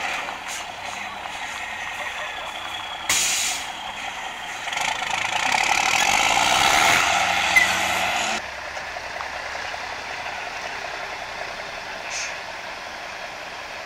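MAN trial truck's diesel engine working as the truck crawls over a dirt mound, with a short, sharp burst of air-brake hiss about three seconds in. The engine grows louder for a few seconds, then drops abruptly to a quieter, steadier running sound.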